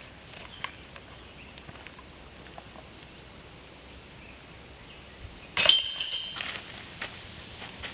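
A putted disc hits a disc golf basket: a sudden loud metal clash about five and a half seconds in. The chains and frame ring briefly, then rattle a few more times as they settle.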